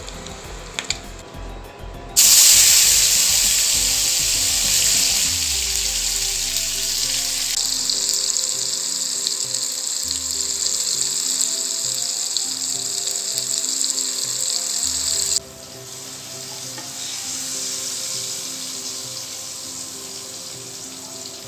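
Hot oil sizzling in a frying pan as chillies and tomato pieces fry, loud and steady from a sudden start about two seconds in, then dropping sharply to a quieter hiss about three-quarters of the way through. Soft background music with a repeating pattern runs underneath.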